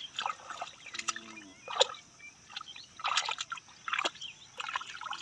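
Feet and hands squelching and splashing in shallow muddy water, in irregular short wet bursts, as mud is dug and trodden.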